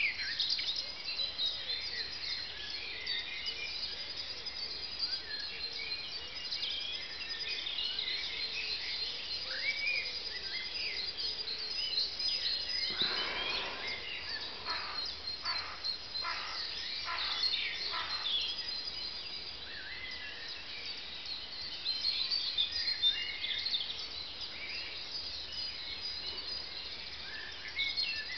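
Dawn chorus of many songbirds singing and chirping at once. In the middle, one bird gives a run of about half a dozen short, louder calls.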